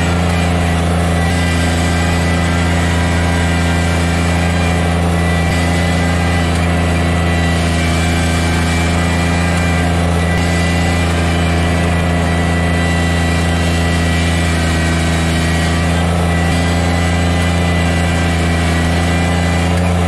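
Kubota BX sub-compact tractor's three-cylinder diesel engine running at a steady speed while the front loader bucket pushes snow, heard from inside the cab.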